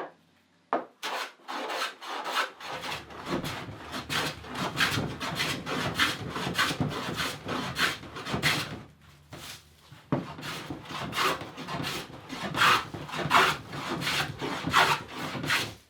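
Hand tool working a wooden board held on a bench: repeated scraping, rasping strokes, about one or two a second, with a brief pause partway through. A single short knock comes just before the strokes begin.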